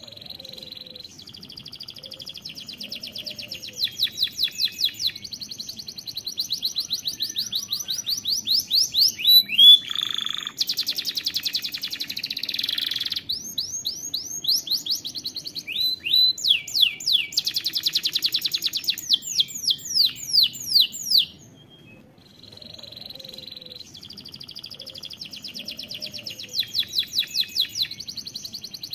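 Domestic canary singing a long song made of trills: runs of fast repeated notes, some slower and louder, with a harsh buzzy phrase about a third of the way in. The song breaks off briefly about three quarters of the way through, then picks up again with more trills.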